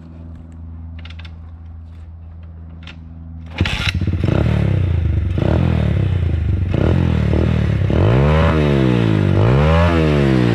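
A 125cc Chinese pit bike's single-cylinder engine idling low and steady, then about three and a half seconds in it jumps to a loud, rough, clattery run. Near the end it is revved up and back down twice.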